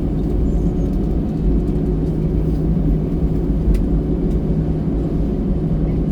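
Steady low rumble and drone of a moving vehicle heard from inside, with a constant hum and a few faint clicks.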